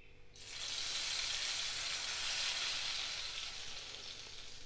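Hot tempering oil with mustard seeds, urad dal and curry leaves poured into peanut gravy, sizzling as it hits the liquid. The sizzle rises about half a second in and slowly dies away.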